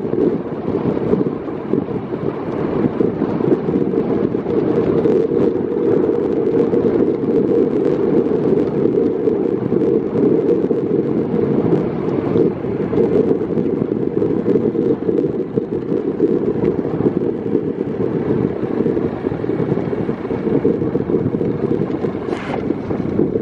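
Wind buffeting the microphone of a camera riding on a moving vehicle: a steady, loud, dull rumble, with a brief hiss near the end.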